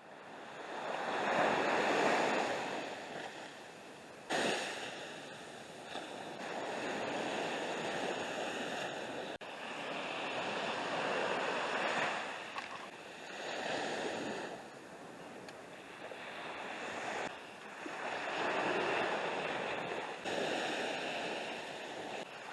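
Ocean surf: waves breaking and washing up the shore, swelling and fading every few seconds.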